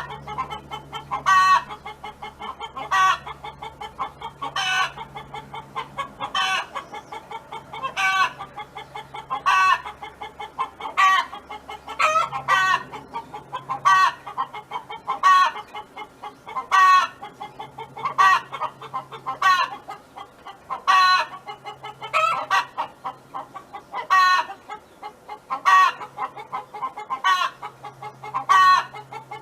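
A domestic hen calling over and over in a steady rhythm, one loud call about every second and a half, with softer clucks between.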